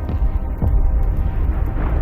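Deep, continuous rumble of distant artillery bombardment in a WW1 battlefield ambience, growing louder with a boom about half a second in, over a low dark drone.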